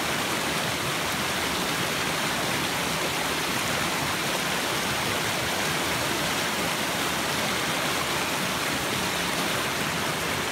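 A shallow river rushing over rocks and small rapids, a steady rush of water.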